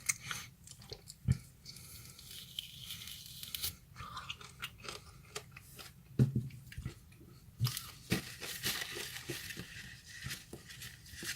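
A person chewing and eating a raw lemon quarter: soft, irregular wet mouth sounds and small clicks and crunches.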